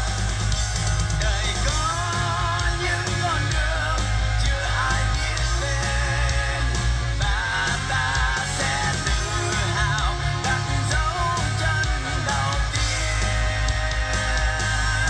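Music with guitar, heavy steady bass and a wavering lead melody, played through a Harman Kardon Onyx Studio 5 portable speaker in a sound test.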